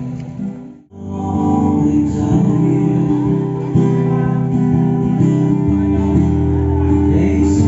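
Background music with guitar, dropping briefly to near silence about a second in before carrying on.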